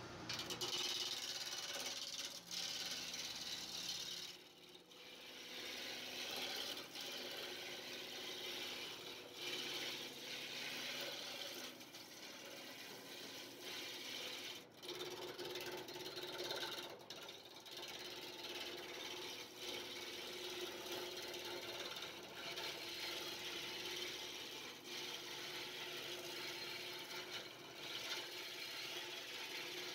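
Wood lathe spinning a wooden baluster blank while a hand-held turning tool cuts into it: a steady rasping, chattering cut over the lathe's hum, with brief breaks every few seconds.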